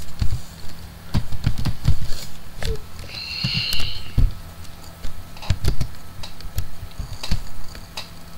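Typing on a computer keyboard: irregular runs of key clicks. About three seconds in there is also a brief high-pitched tone lasting under a second.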